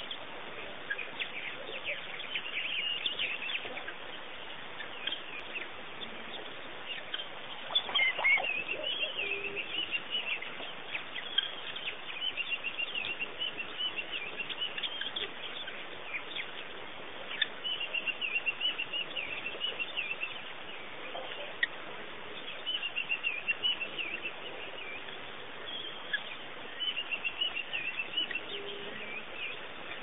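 Wild birds chirping and calling in short repeated phrases over a steady background hiss, with the loudest burst of calls about eight seconds in.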